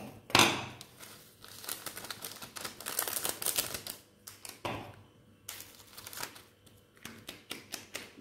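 Plastic-foil instant-noodle seasoning sachets snipped open with scissors and shaken out over a glass bowl: a run of crisp crinkles and clicks, loudest about half a second in and thinning out in the second half.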